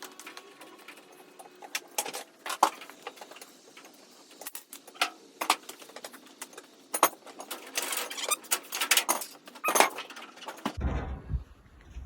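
Irregular metallic clinks, knocks and rattles of hand tools and metal parts being handled. About a second before the end, a steady low rumble takes over.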